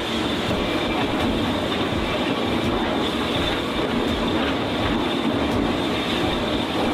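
Steel mill machinery running: a steady, dense industrial din with faint irregular clanks.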